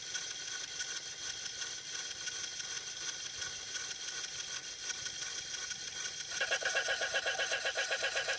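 Granular synthesis texture from a Max/MSP patch: a dense electronic buzz of many steady high tones layered together. About six seconds in it grows louder and breaks into a fast, even pulsing stutter.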